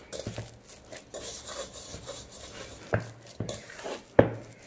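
Hand kneading soft burger-bun dough in a stainless steel bowl: dough rubbing and squishing against the metal, with two sharper knocks about three and four seconds in.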